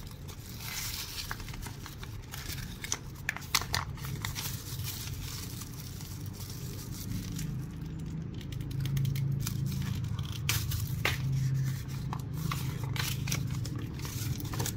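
Thin plastic bag of screws torn open by hand, with crackling and crinkling plastic and paper rustling as a folded warranty card is handled.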